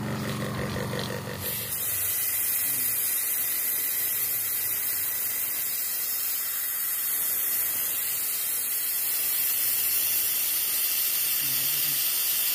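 Steady, high hiss of a pressurised spray forced through a petrol fuel injector that is held open by battery power during injector cleaning. It starts about two seconds in.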